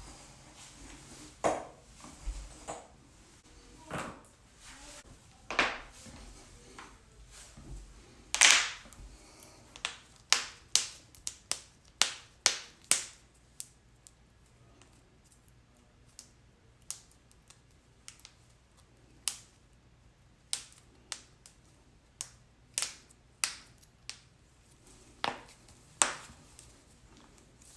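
Joints cracking in a long series of sharp, irregular pops. There is a quick run of about three pops a second in the middle, and the loudest pop comes about a third of the way in.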